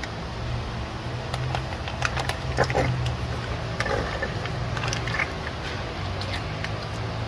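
Plastic gear-oil pouch crackling in bursts of small clicks as it is squeezed and emptied into a differential fill hole, over a steady low hum.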